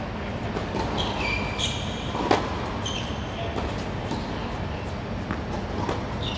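Tennis rally on a hard court: a few sharp racket-on-ball hits and ball bounces, the loudest a little over two seconds in, with short high squeaks of sneakers on the court surface over a steady low hall background noise.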